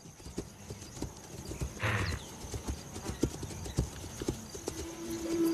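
Hooves of a galloping blue wildebeest and its calf thudding irregularly on grassland, with a brief breathy sound about two seconds in. Music comes in near the end.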